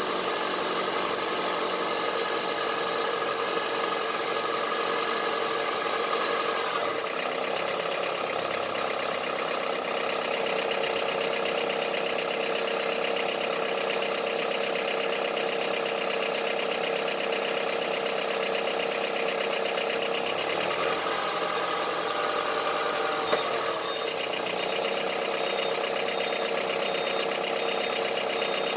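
Honda CR-V III 2.4-litre petrol four-cylinder running steadily at idle with a diesel-like knocking clatter from the engine.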